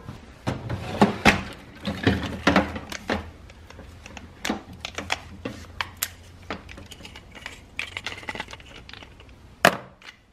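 Irregular clicks, clanks and knocks of metal tools being handled in a metal toolbox drawer while the disc is taken off an angle grinder to swap it for a cut-off wheel.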